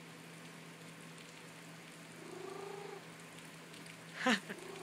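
A recording of a cat purring plays through a laptop speaker, with short pitched cat sounds in it. About four seconds in comes a louder call that falls steeply in pitch.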